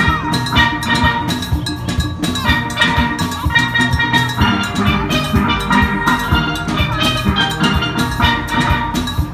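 Steel band playing: steelpans ringing out a melody in quick notes over a steady drum beat.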